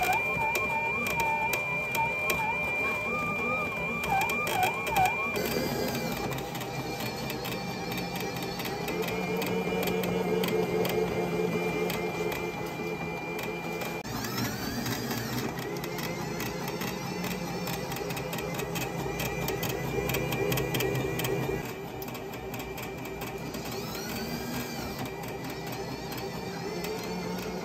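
Rotimatic Plus automatic roti maker running through a batch: its motors whir steadily with frequent small clicks, and the whir swells and changes pitch a couple of times as it works the dough and cooks the rotis.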